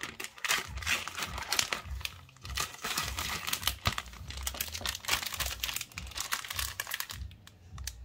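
Plastic wrapper of a spring roll pastry pack crinkling and rustling as it is handled and pulled off the stack of pastry sheets. The crackling stops about seven seconds in.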